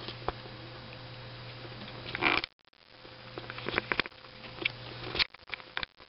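Soft rustling, light clicks and taps of a kitten batting and biting at a wire toy on bedding, over a steady low electrical hum. A louder rustle comes a little over two seconds in, and the sound briefly drops out just after it.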